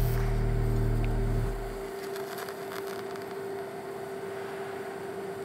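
TIG welding setup running with a loud, steady electrical hum that drops away about a second and a half in. A thin steady whine stays on, with light crackling a little later.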